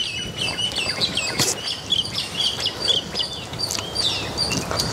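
Small birds chirping busily, many short quick notes repeating throughout, over close-up sounds of a person biting and chewing food.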